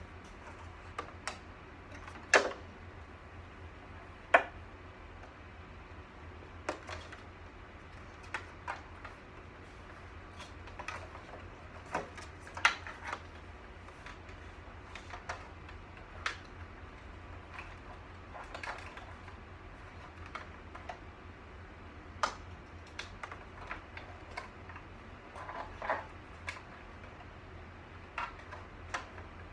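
Irregular clicks and knocks of parts being handled and fitted at a computer cart's monitor mount, a few sharper than the rest, over a steady low hum.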